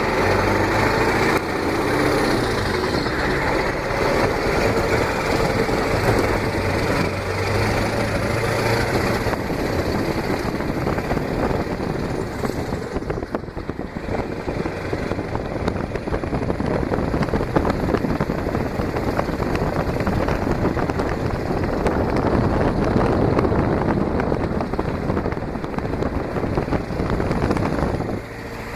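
Engine running with a whiny turbocharger whistle. Through the middle part, wind buffets the microphone and covers the engine's steady hum.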